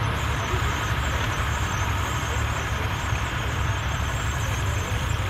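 Engines of a 'Double-Butt' Massey Ferguson 35, two MF35 tractors joined into one four-wheel-drive tractor, running steadily while pulling a disc harrow through tilled soil.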